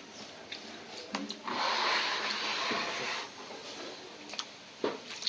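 Water splashing and sloshing for about two seconds, starting a little over a second in, with a few small knocks and clicks around it.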